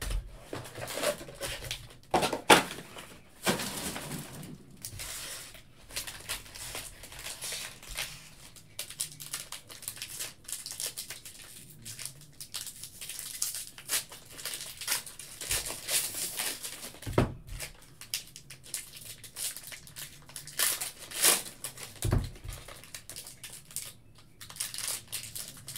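Foil-wrapped 2021 Panini Score football card packs crinkling as they are handled and stacked, with a few light knocks.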